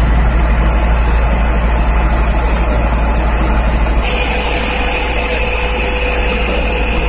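Mercedes-Benz fire truck's diesel engine running steadily, a heavy low rumble, as it powers the aerial ladder and water pump. About four seconds in the rumble drops and a steady whine comes in.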